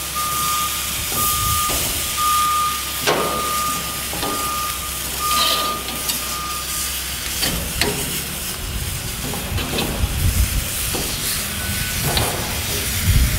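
Pork loin sizzling on a hot grill grate, a steady hiss, with several sharp clicks of metal tongs against the grate as the pieces are turned and moved. Low wind rumble on the microphone in the second half.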